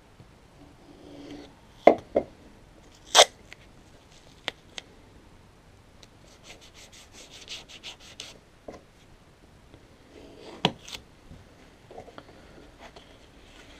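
Brown parcel tape pulled off its roll in a rapid crackling run lasting about two seconds, with several sharp knocks and taps from the tape roll, knife and mount board being handled on the workbench; the loudest knocks come about two and three seconds in and again near the end.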